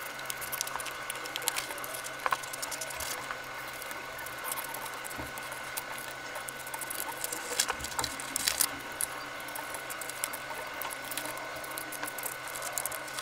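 Scissors cutting through black chart paper: a run of short, irregular snips and crackles as the blades close through the paper, with the sheet rustling as it is turned.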